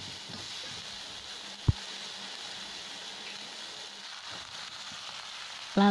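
Sliced shallots, chilies and tomato sizzling in hot oil in a wok: a steady, even hiss, with a single sharp click a little under two seconds in.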